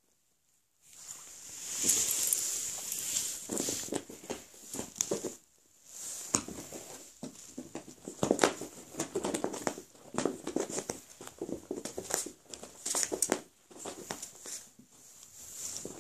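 A cat's paws scrabbling and thumping on carpet as it pounces and skids about, an irregular run of soft knocks and rustles that starts about a second in.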